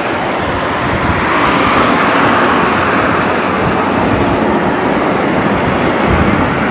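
Wind rushing over the microphone while riding an e-bike along a road: a steady rushing noise with a low rumble.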